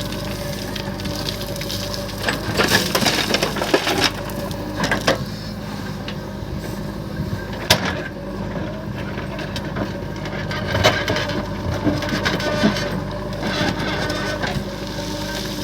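Diesel engine of a backhoe loader running steadily while stone is loaded with its bucket: a burst of crunching and clattering stone about two to four seconds in, then single sharp knocks of stone now and then.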